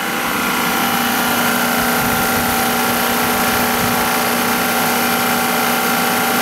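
Refrigerant recovery machine running steadily, a hum with a few fixed tones over a hiss, as it pulls the R-22 charge out of an air conditioner and draws the suction pressure down toward a vacuum.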